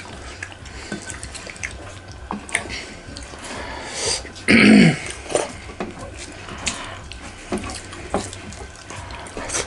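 Close-up eating sounds: fingers mixing wet curry and dhindo on metal plates, with chewing and lip smacks making many small wet clicks. About four and a half seconds in, a short vocal sound falls in pitch.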